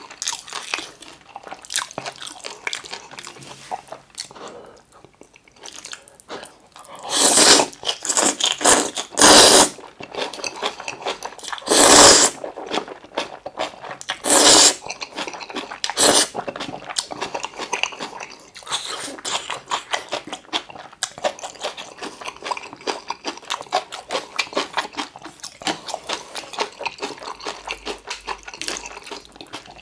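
Close-miked eating of kimchi and curry ramyeon: wet chewing with rapid small smacks and crunches throughout. Several loud noodle slurps come near the middle, about five, each lasting under a second.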